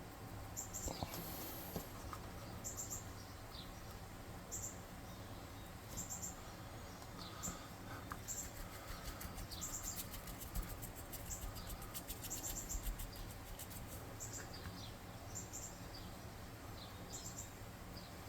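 Faint light scratching of a paintbrush dry-brushing highlights onto a small plastic miniature, with short faint high chirps repeating about once a second.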